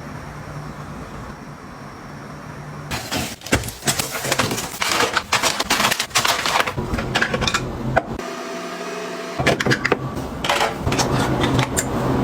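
Items being handled and set in place: quick clicks, taps and rustling that start about three seconds in and come in two busy spells, over a steady low hum.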